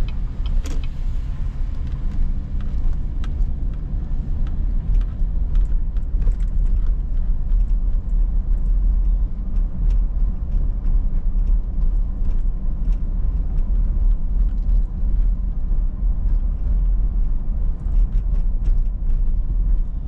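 Road noise inside a moving car on a wet road: a steady low rumble of tyres and engine, with small ticks and rattles scattered throughout.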